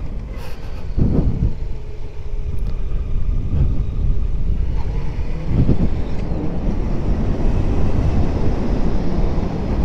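Motorcycle riding downhill through mountain bends: the engine runs under steady wind and road noise, with brief swells about one second and six seconds in.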